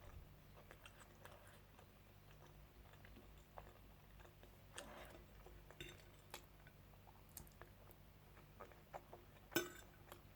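Faint chewing and mouth sounds of a person eating, with scattered small crunches and clicks and one sharper click near the end.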